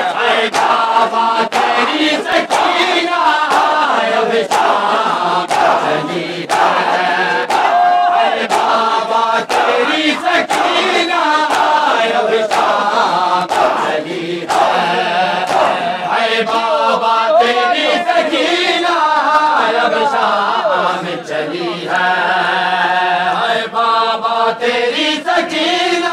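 A large crowd of men chanting together, with sharp hand slaps in a steady beat of roughly two a second.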